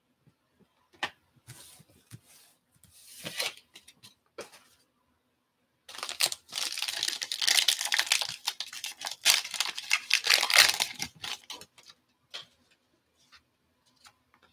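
A trading-card pack wrapper being torn open and pulled off: a loud crinkling, tearing noise lasting about five seconds, starting about six seconds in. Before it come a few small clicks and rustles of cards being handled.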